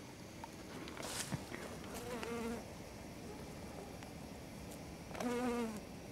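A bee buzzing in flight, in two short passes of about half a second each: one about two seconds in and one near the end.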